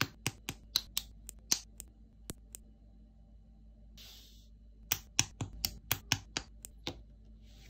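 Plastic parts of a Blokees Transformers snap-together figure clicking as they are pressed together and posed: a quick run of sharp clicks, a brief scratchy rub about four seconds in, then another run of clicks.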